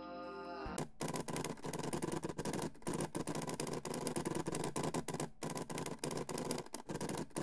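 Rapid typing sound effect, a steady run of key clicks with a few brief pauses, laid over text appearing letter by letter. A soft music bed stops under a second in, just before the typing starts.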